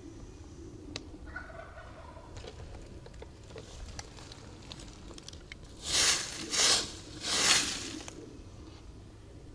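Wild turkey gobbler gobbling: one loud gobble in three close bursts about six seconds in.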